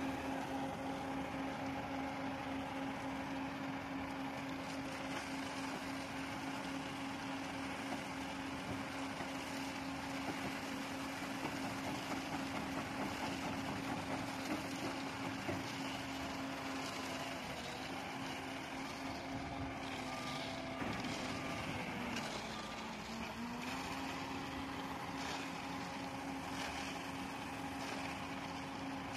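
Diesel engine of an SLM 4300 self-loading concrete mixer running steadily as its loading bucket digs into a gravel pile, with crushed stone rattling in the bucket. The engine's pitch sags briefly about three-quarters of the way through, then recovers.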